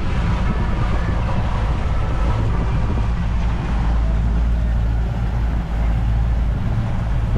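Boat engine running steadily under way, a constant low drone with the rush of wind and water over it.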